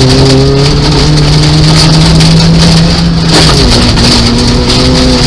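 Nissan Micra 1.0-litre rally car heard from the cabin under hard acceleration on a wet gravel stage. The engine note climbs slowly, then drops at a gear change about three and a half seconds in, over steady road noise and the patter of gravel and water thrown up under the car.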